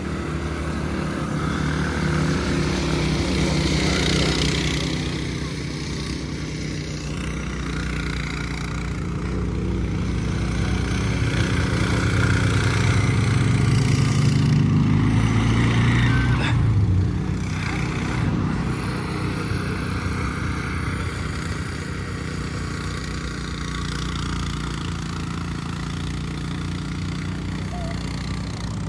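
Small engines of off-road riding vehicles running, one revving higher and louder about halfway through, then dropping off abruptly.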